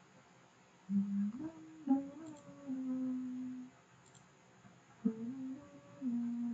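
A person humming a tune: held notes with small slides between them, in two phrases, the first starting about a second in and the second about five seconds in.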